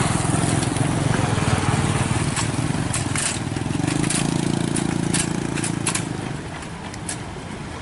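Diesel engine of a farm machine (combine harvester or tractor) running under load, a steady low drone whose pitch shifts about four seconds in and which fades a little after six seconds. Several sharp clicks and knocks come through over the middle of it.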